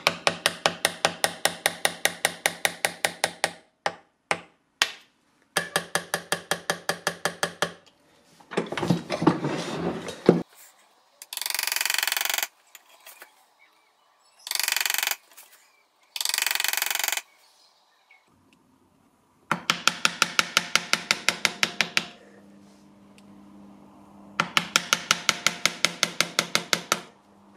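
Light hammer taps driving an engraving graver into a steel plate clamped in a bench vise. The taps come quick and evenly spaced in runs of two or three seconds, and the plate rings briefly with each tap. Between the runs there are a few short bursts of rasping noise.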